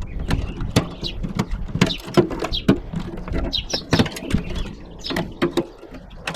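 Irregular clicks, knocks and clatter of hand tools on the microwave's sheet-metal chassis as its internal wiring is worked loose and pulled out.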